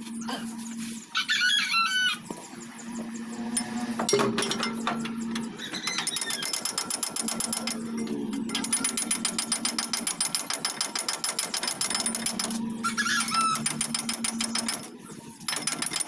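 A single metallic clank about four seconds in, then a fast, even run of mechanical clicks lasting about nine seconds. A rooster crows briefly near the start and again near the end.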